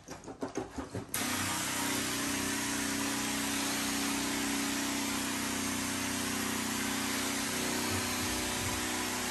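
Backpack sprayer's motor pump with a sputtering, pulsing spray at first. About a second in it settles into a steady hum under the hiss of pre-spray misting from the wand.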